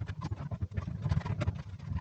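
Quick, irregular plastic clicks and rattles as wiring-harness connectors are worked loose from a washing machine's electronic control board.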